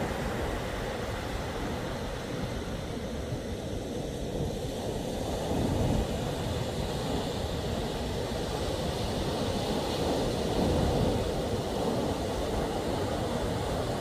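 Wind buffeting the microphone over the wash of surf, a steady low rumble that swells in gusts.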